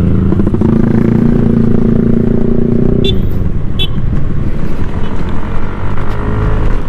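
Yamaha NMAX scooter's single-cylinder engine running at a steady speed under rumbling wind and road noise. About three seconds in, the steady engine note gives way to a rougher rumble, and two short high beeps sound close together.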